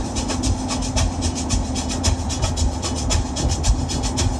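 Road noise inside a moving van: a steady low rumble from the tyres and engine, with continual light rattling and clicking over it and a faint steady hum.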